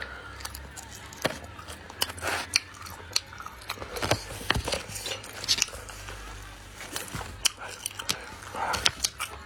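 Close-up chewing and biting of cumin-spiced chicken gizzards: irregular crunches and sharp mouth clicks, over a faint steady low hum.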